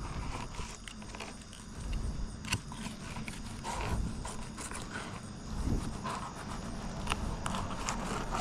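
A serrated fillet knife sawing and crunching through a fish's tough skin and bones on a cutting board, in short irregular scraping and clicking strokes.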